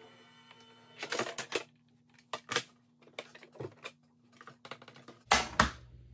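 Hard plastic cutting plates and an embossing folder clacking and knocking as they are handled, pulled apart and set down after a pass through an electric die-cutting machine. The knocks come in several short clusters, the loudest near the end, over a faint steady hum.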